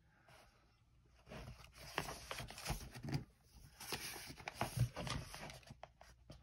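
Paper rustling and scraping as a coloring book page is turned by hand and smoothed flat, in a string of short irregular rustles starting about a second in.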